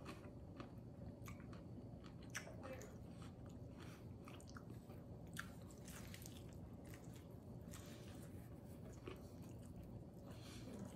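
Faint chewing of a mouthful of pizza, with a bite into a slice and a scatter of soft, irregular crunches and mouth clicks.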